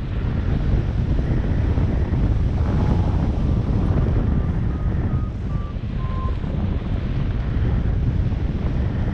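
Wind rushing over the microphone in flight, a steady buffeting rumble. A little past the middle, a run of short, faint beeps shifting slightly up and down in pitch sounds through it, like a flight variometer signalling lift while circling in a thermal.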